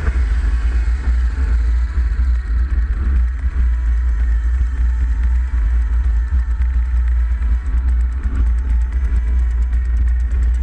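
Single-engine light aircraft's piston engine and propeller droning steadily in the cockpit as it rolls along the runway.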